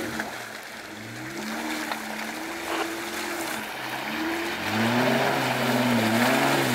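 Jeep Wrangler JK's engine revving up and down as it drives through a shallow icy river ford, with water and slush splashing around the tyres. The engine gets louder and holds higher revs about four and a half seconds in.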